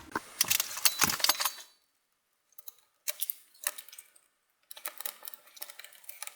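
Three spells of small sharp clicks and light metallic rattling as tiny screws are taken out of the LCD panel frame of a ThinkPad T530 laptop with a small screwdriver.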